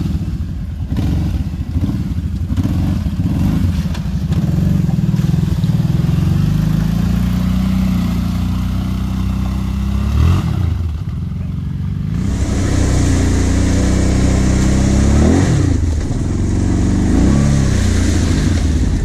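ATV engines running under load through a muddy rut, with the revs rising and falling several times. In the second half the sound comes from on board a Kawasaki Brute Force 750 quad, with a steady hiss over the engine.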